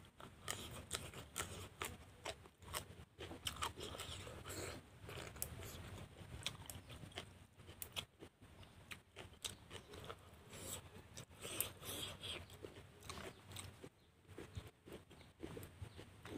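A person chewing and biting food by mouth, close to the microphone: a continual, irregular run of short wet clicks and crunches.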